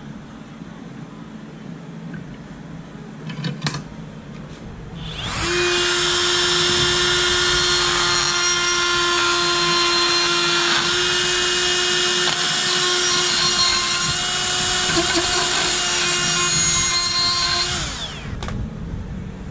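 Cordless drill running at a steady speed for about twelve seconds, its bit working the tip of a steel aerator tine clamped in a bench vise, then stopping abruptly. A single knock comes a couple of seconds before it starts.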